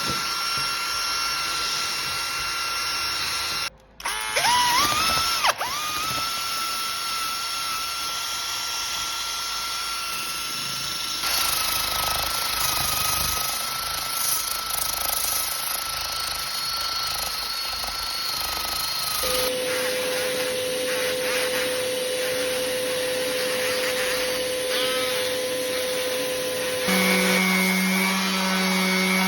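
Electric power tool motor running steadily. About four seconds in it stops briefly and spins back up with a rising whine, and its pitch shifts a few times later on, as if under changing load or speed.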